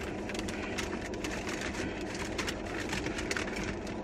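Rapid, irregular crackling and clicking from food and its paper wrapping being handled, over a steady low hum in the car cabin.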